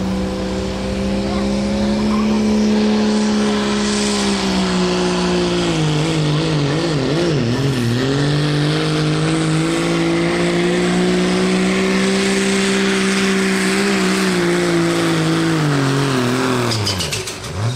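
Diesel pickup engine, the 5.9 Cummins inline-six of a second-generation Dodge Ram, at full throttle pulling a sled. Its loud, steady note wavers and dips about halfway through, then falls in pitch as the sled drags the truck down, and the engine lets off abruptly near the end.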